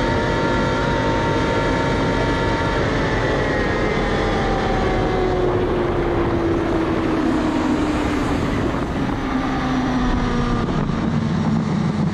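BMW S 1000 RR's inline-four engine winding down as the bike slows from high speed, its pitch falling steadily, under heavy wind rush.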